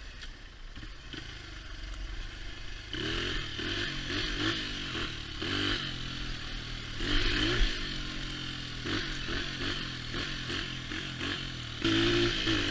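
Honda XR80R dirt bike's small four-stroke single-cylinder engine running on the move. It is low and steady for the first few seconds, then revs up and falls back again and again as the throttle opens and shuts. The rider feels the engine needs tuning.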